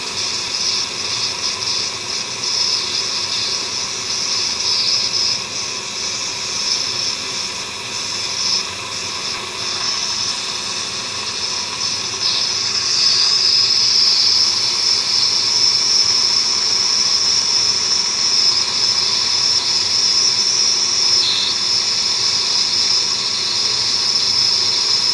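Steady, high-pitched hiss of dental equipment working at the gum during a laser removal of a fibroma, growing louder about halfway through.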